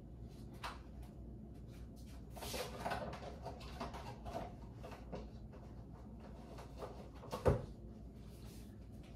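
Kitchen handling noises: scattered clicks and rustling, with one sharp knock about seven and a half seconds in, like a cupboard door or drawer being shut.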